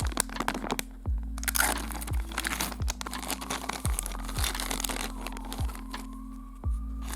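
Electronic background music with deep bass-drum thumps, over sharp crackling and crinkling noise.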